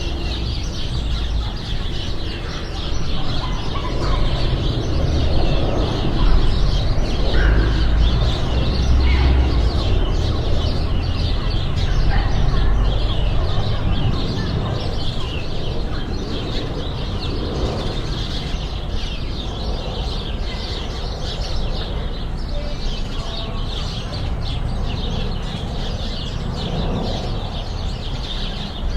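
Urban garden ambience of many small birds chirping and calling without a break, over a low rumble that is heaviest in the first half.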